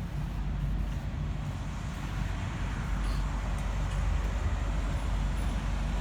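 Semi-truck engine running steadily, a constant low hum with an even rumble of noise over it.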